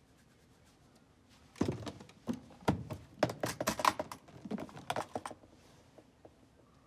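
A quick, irregular run of sharp clicks and knocks with a few duller thuds, lasting about four seconds, in a small room.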